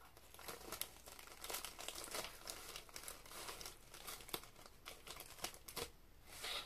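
Thin clear plastic packaging crinkling as it is handled and opened, a run of irregular crackles.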